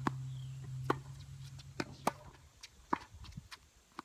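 Tennis balls being struck by rackets and bouncing on a court: short sharp pops about once a second. Under them a low steady hum fades out a little past halfway.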